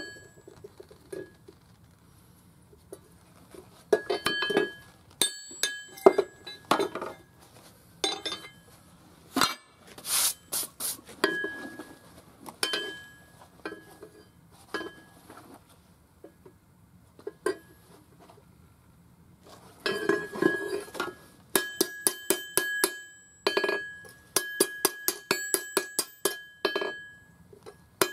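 Hand hammer striking steel on an anvil while an axe head is forged, each blow ringing metallically. The blows come in bursts, with a pause midway and a fast run of strikes, about three or four a second, in the last part.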